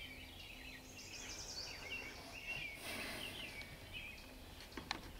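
Several songbirds chirping and trilling, overlapping calls throughout. A brief hiss about three seconds in and two sharp clicks near the end.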